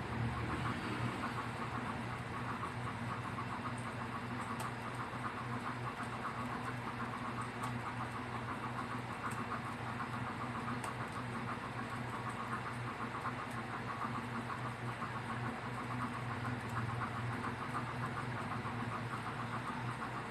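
Computer keyboard being typed on rapidly and continuously, a quick patter of key clicks over a steady low hum.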